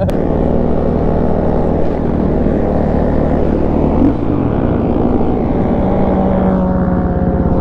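Dirt bike engine pulling away from a stop and running under way, its pitch changing about four seconds in before it settles to a steady note.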